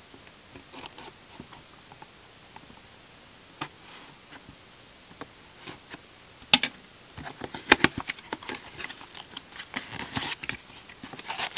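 A knife slitting the wrapping on a cardboard trading-card box, then the box being handled and its cardboard flaps pulled open: scattered scrapes and sharp crackles, busier and louder in the second half.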